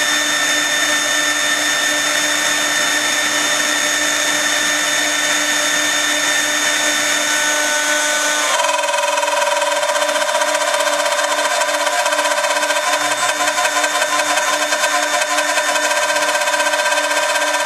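CNC router spindle cutting 40 mm MDF: a steady high whine over the noise of the bit chewing through the board. About eight and a half seconds in, the tone shifts abruptly to a lower, rougher pitch.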